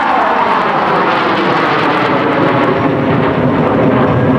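Loud, rushing jet roar of four F-16 Fighting Falcons flying over in close formation, its pitch falling in the first second as they pass and climb away into a loop.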